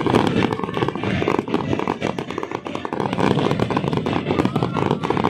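Dense fireworks barrage: many aerial shells bursting and crackling at once in a continuous run of overlapping bangs.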